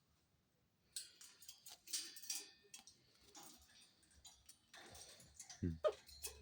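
Cockatiels moving about their cage: scattered clicks and scratches of feet and beaks on the cage, busiest about a second in. Near the end comes a short squeak rising in pitch, the loudest sound.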